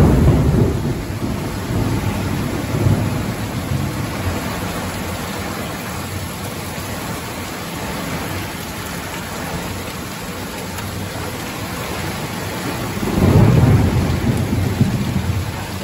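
Heavy rain pouring steadily in a thunderstorm, with a roll of thunder right at the start and another, louder roll near the end.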